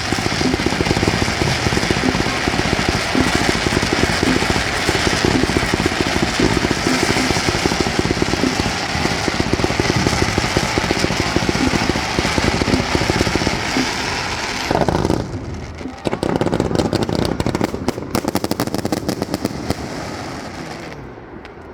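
Fireworks going off in a dense, continuous barrage of rapid bangs and crackling. The barrage eases about fifteen seconds in, then resumes as fast crackling that fades near the end.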